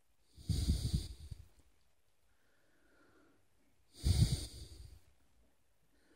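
Two breaths, each about a second long and about three and a half seconds apart: a person exhaling close to the microphone, with a breathy hiss and a low rumble.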